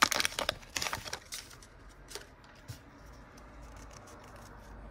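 Foil wrapper of a Pokémon booster pack crinkling and tearing as it is pulled open, with a quick cluster of crackles in the first second or so. After that, only faint clicks of the cards being handled.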